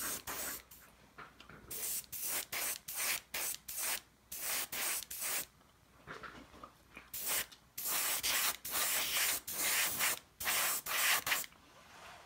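Airbrush spraying paint in about twenty short hissing bursts, each from a fraction of a second to about a second long, with a pause of about a second and a half midway.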